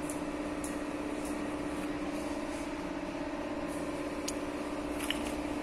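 Steady mechanical hum at an even pitch, with a few faint clicks over it.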